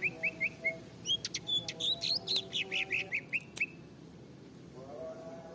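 Small birds chirping: a quick run of short, evenly repeated chirps, then a busier stretch of mixed chirps and whistled notes, dying away for the last couple of seconds.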